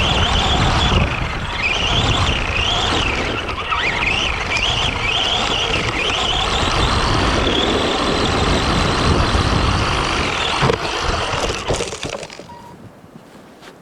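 Arrma Granite 4x4 RC truck driving hard, its electric motor whining up and down with the throttle over the noise of the tyres on the ground. It stops about twelve seconds in.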